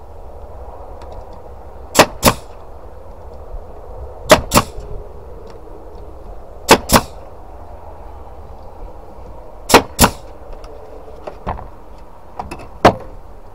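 Pneumatic brad nailer firing nails into timber boards: sharp shots, mostly in quick pairs a quarter-second apart, repeating every two to three seconds, with a few fainter clicks between them.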